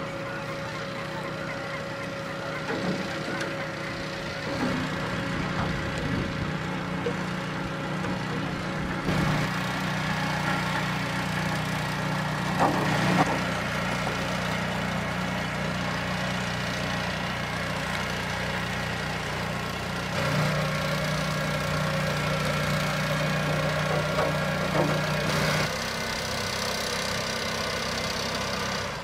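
A gill-net fishing skiff's engine running steadily, its drone shifting slightly about a third of the way in and again about two-thirds in, with a brief clatter near the middle.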